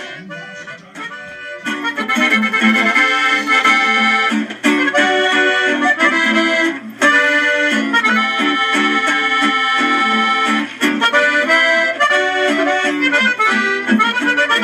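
Corrido music led by accordion, with a band behind it. It opens softly, and the full band comes in about two seconds in.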